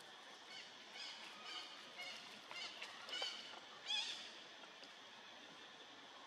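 Long-tailed macaque giving a series of about seven short, high-pitched calls, roughly two a second, the last and loudest about four seconds in.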